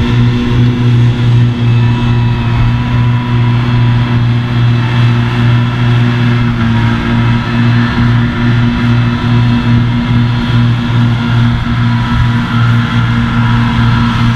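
New Holland T7 tractor running under load while mowing grass with a Claas front-and-side triple disc mower combination: a steady, loud engine-and-driveline drone with a low hum that pulses slightly.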